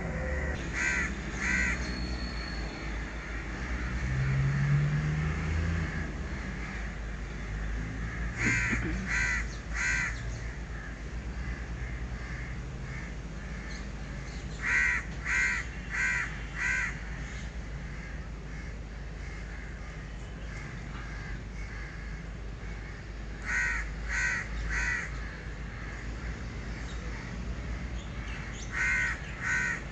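Crows cawing in short runs of two to four harsh caws, a run every several seconds, five runs in all. Beneath them runs a steady low rumble that swells briefly about four seconds in.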